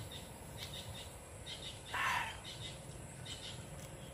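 Birds chirping in short repeated high notes, with one louder, brief call that falls in pitch about two seconds in.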